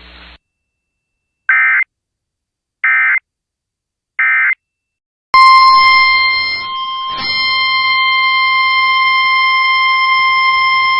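Three short identical bursts of digital data tones about a second and a half apart: the Emergency Alert System (SAME) end-of-message code closing a broadcast warning. About five seconds in, a loud, steady single-pitched NOAA Weather Radio warning alarm tone near 1050 Hz starts and holds.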